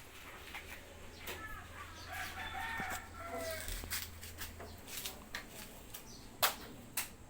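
Chickens clucking faintly in short calls, over a low steady hum that stops about two-thirds of the way through. Two sharp clicks come near the end.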